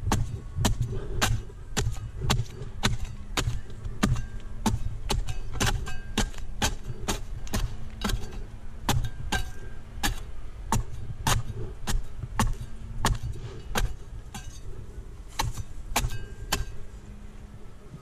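A pruning blade chopping into the tough frond bases of a Canary Island date palm: sharp strikes, about two a second, over a low rumble.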